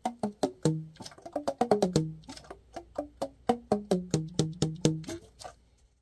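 Yamaha YAS-62 alto saxophone keys being pressed quickly, with the pads slapping shut on the tone holes. Each closure makes a short, hollow, pitched pop, and the pitch changes as different keys close, about four pops a second.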